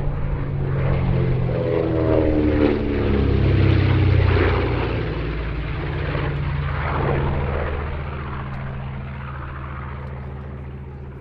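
Piston-engined WWII propeller warbird flying past: the engine note swells to its loudest about four seconds in, drops in pitch as it passes, then fades away.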